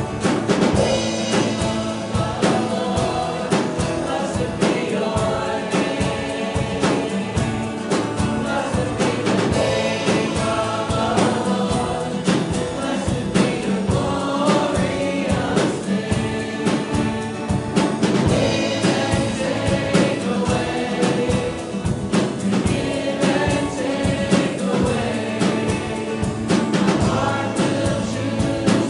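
Worship music: a group of voices singing a worship song together over instrumental accompaniment with a steady beat.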